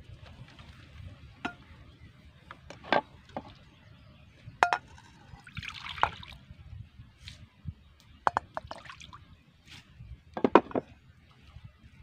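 Water poured briefly from a clay jug into a terracotta dish, about halfway through. Around it, a scatter of sharp clinks and knocks from pottery and a knife handled on a wooden table and cutting board, the loudest near the end.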